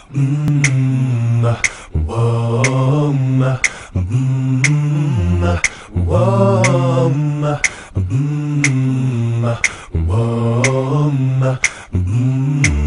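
A cappella vocal music: sung phrases about two seconds long, each held on sustained notes, repeating in a steady cycle over sharp clicks that keep a beat about once a second.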